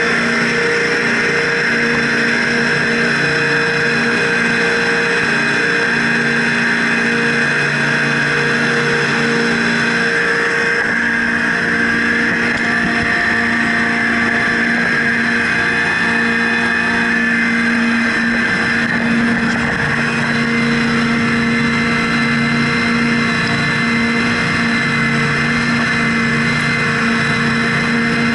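Twin Seven Marine 557 supercharged V8 outboards running steadily at high speed, with the rush of the wake. The engine note holds even throughout.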